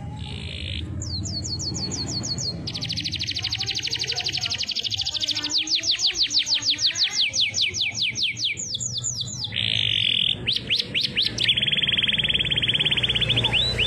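Domestic canary singing a long, unbroken song of fast rolls and trills, with runs of rapid down-sweeping notes that sound like a siren.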